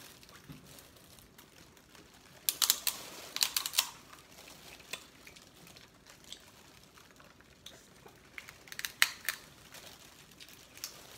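Sharp crackling clicks of crab and shrimp shells being cracked and picked apart by hand, in two bursts: one a couple of seconds in, one about nine seconds in.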